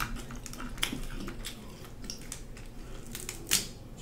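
Snow crab leg shells being cracked and pulled apart by hand: scattered sharp cracks and crunches, the loudest about three and a half seconds in.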